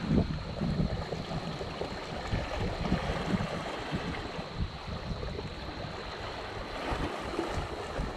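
Wind buffeting the microphone over small waves washing against shoreline rocks.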